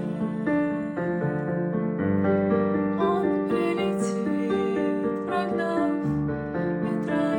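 Keyboard music: a gentle instrumental passage of held chords and a melody, with the bass changing every few seconds.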